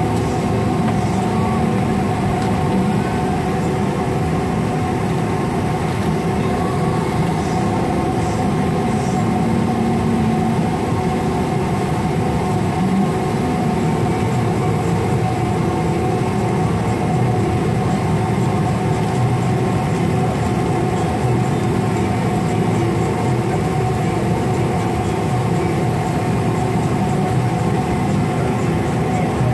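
Jet airliner taxiing after landing, heard from inside the cabin: a steady rumble from the engines at idle and the wheels rolling on the taxiway, with several steady whining tones over it.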